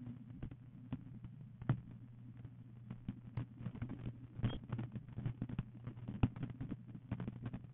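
Handling noise from a hand-held phone: many irregular light clicks and taps over a steady low hum.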